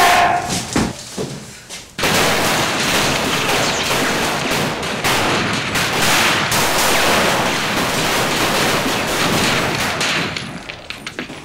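Heavy gunfire: many shots in rapid, overlapping succession, starting suddenly about two seconds in and dying away near the end.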